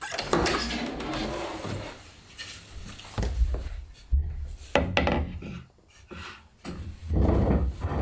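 Hand tools working wood: irregular scraping and rubbing strokes with a few sharp knocks in between.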